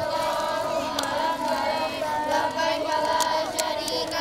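A large group of children's voices chanting together without a break, many pitches overlapping.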